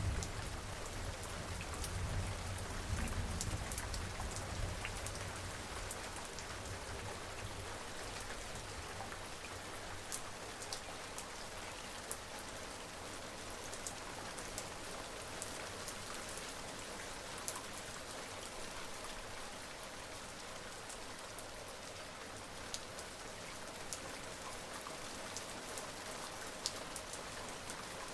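Steady rain falling, an even hiss with scattered sharp drop ticks. A low rumble of distant thunder fades away over the first few seconds.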